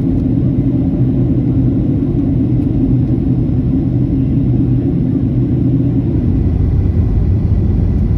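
Steady low rumble of engine and airflow noise inside the cabin of a Boeing 737-800 descending on approach. Its tone drops slightly about six seconds in.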